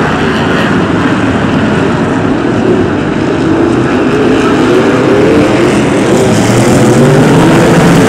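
A pack of BriSCA F1 stock cars racing, several V8 engines revving at once with their pitch rising and falling as the drivers lift off and accelerate through the bend. The sound grows louder about five seconds in as the cars come nearer.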